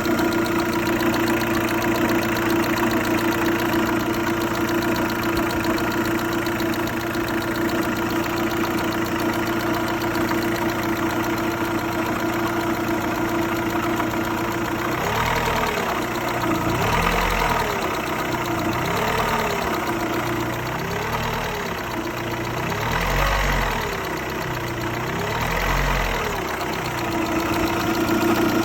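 Opel Astra 1.8 X18XE1 four-cylinder petrol engine idling with the knocking, clattering noise in the motor. About halfway in, the revs rise and fall gently about six times, roughly every two seconds, then settle back to a steady idle.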